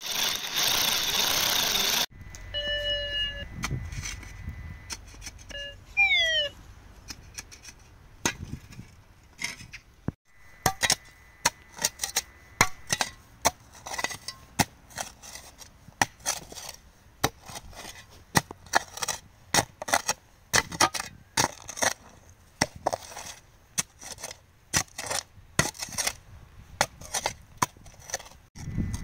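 Steel hand shovel digging into stony, snow-covered soil: irregular scraping knocks of the blade against earth and stones, one or two a second, through most of the clip. It opens with about two seconds of a drill boring into rock, followed by a few short tones and a falling glide.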